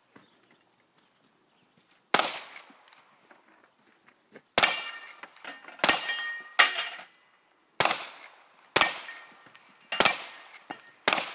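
A string of about eight gunshots from a long gun, starting about two seconds in and coming roughly one a second. Several are followed by the short ring of steel plate targets being hit and knocked down.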